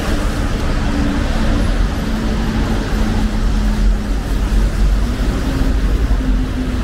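City street traffic: a steady rumble of vehicles on the road, with an engine hum that drifts slowly in pitch.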